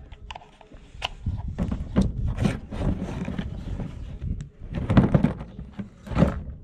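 Plastic housing parts of a small battery chainsaw being pulled apart and handled: irregular clicks, knocks and scrapes of hard plastic, with the loudest knocks about five and six seconds in, over a low rumble.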